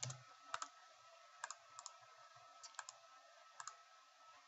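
Faint computer mouse clicks, scattered about half a second to a second apart, several coming as quick press-and-release pairs.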